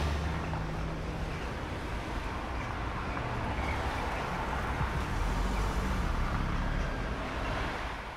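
City traffic ambience: a steady hum of road noise with a low rumble, easing off near the end.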